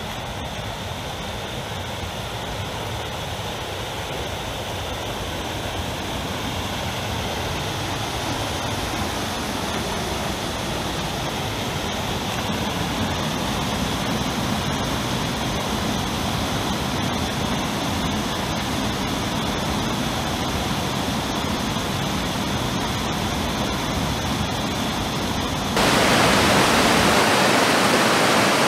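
Rushing water of a woodland stream cascading over rocks: a steady noise that slowly grows louder, then about 26 s in turns suddenly louder and brighter, heard close to the falls.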